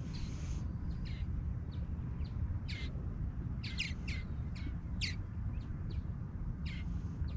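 Bird chirping: about ten short, sharp, high calls at irregular intervals, over a steady low rumble.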